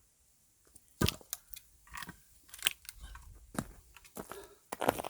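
A single axe blow into a log about a second in, followed by irregular cracking and crunching of wood.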